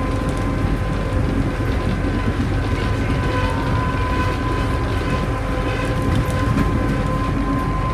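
Škoda 14Tr08/6 trolleybus running at speed, heard inside its cabin: a steady electric whine from the drive over a continuous rumble of tyres and road.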